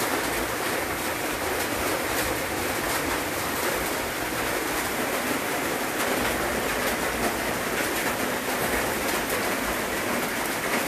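Wood fire under a whole pig roasting on a spit: a steady hiss with many small crackles, from burning wood and sizzling fat.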